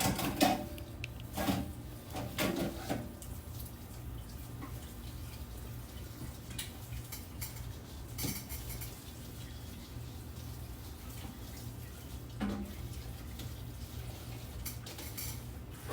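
Kitchen tap running water as radishes are rinsed in a sink, with a few knocks and clatters of dishes in the first three seconds and twice more later.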